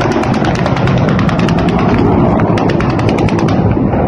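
Low-flying Mi-8 helicopters with a steady rumble, overlaid by a fast, even train of sharp cracks, several a second, that stops about three and a half seconds in.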